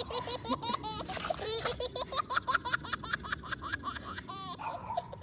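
Toddler laughing hard in a long run of quick, repeated giggles.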